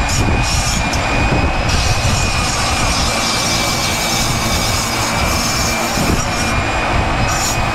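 Flexible-shaft rotary tool whining steadily while its burr grinds into a cork decoy body, a rough rasping hiss over the motor's high whine. The cutting comes in short strokes for the first couple of seconds, then runs on steadily.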